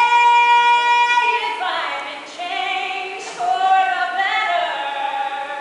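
A woman singing solo in a live concert hall with no accompaniment audible: a held note of a little over a second, then a phrase of shorter gliding notes that ends near the close.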